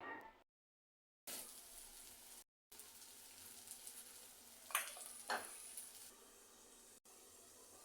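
Food sizzling steadily in hot oil in a pan, with two sharp clatters of a utensil against the pan about half a second apart a little past the middle.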